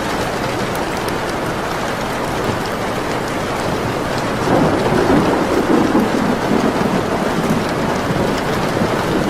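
Steady rain, with a rumble of thunder coming in about halfway through and lasting a few seconds, over scattered small pops of a crackling fire.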